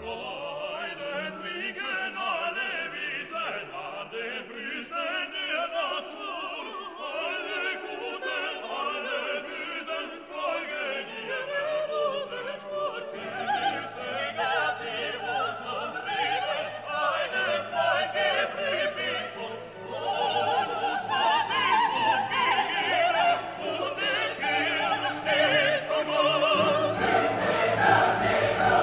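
Background music: classical-style operatic and choral singing with orchestra. A lower part joins about halfway through.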